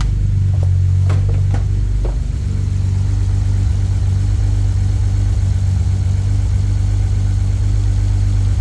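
Ford 3.5-litre EcoBoost twin-turbo V6 of a 2017 Explorer Sport idling steadily, with a few short ticks in the first two seconds. It is running "like shit" after a makeshift soldered repair of the high-pressure fuel pump's broken connector.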